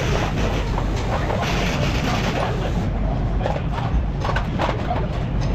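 Repair-shop background: a steady low hum with scattered short clicks and knocks, more of them in the second half.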